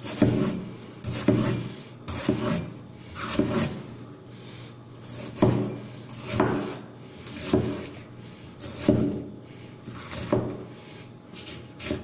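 Chinese chef's cleaver (cai dao) chopping through a tomato onto a wooden cutting board: about a dozen chops, roughly one a second, each a sharp knock of the blade on the wood.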